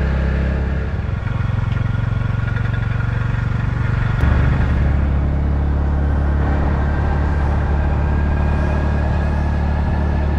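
Small motorbike engine running steadily while riding, with a change in the engine note about four seconds in.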